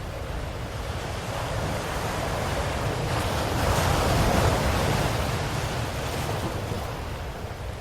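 Ocean waves: a wave swells up with a rushing wash, peaks about halfway through, and ebbs away, over a constant low rumble of surf.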